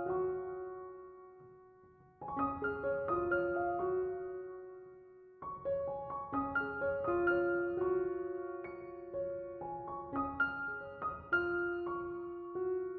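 Background piano music: gentle repeated arpeggiated phrases of single notes, each phrase ringing out and fading before the next begins.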